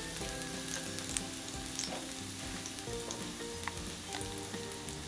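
Steady sizzle of food frying, with occasional faint crackling pops, over a soft background melody of held notes.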